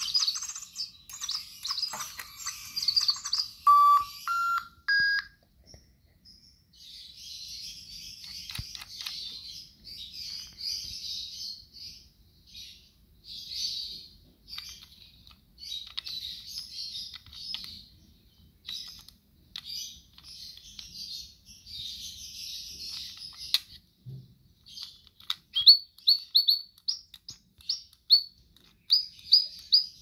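Little Live Pets Lil' Bird, an electronic toy bird, chirping and tweeting through its small speaker. About four seconds in it gives three short beeps, each higher than the last. A long warbling birdsong follows, and near the end comes a string of quick falling chirps.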